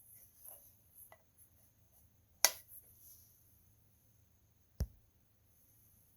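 Light handling sounds on a work surface: a few faint ticks, then one sharp click about two and a half seconds in and a dull low knock nearly five seconds in.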